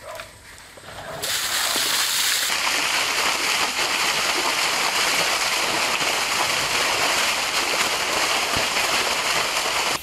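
A heavy jet of water gushing up out of a pipe pump driven by a refrigerator compressor and splashing down onto concrete. It starts about a second in as a loud, steady rush and cuts off suddenly at the end.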